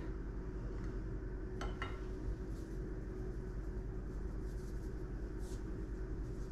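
Quiet kitchen room tone: a steady low hum, with a couple of faint clicks about a second and a half in and a few lighter ticks later as a plastic seasoning shaker is handled over plates of food.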